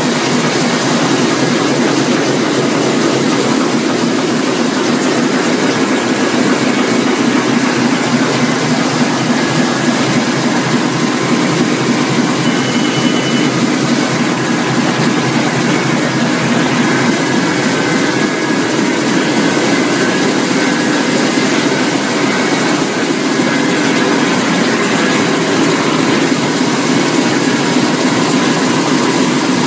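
1999 Roland 704 four-colour sheetfed offset printing press running: a loud, steady mechanical clatter.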